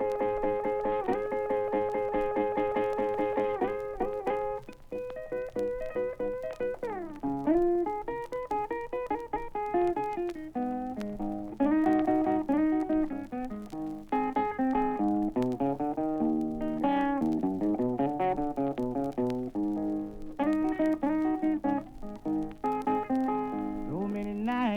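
Blues guitar solo between sung verses: a guitar picking repeated notes, then single-note runs with bent strings over a steady bass line.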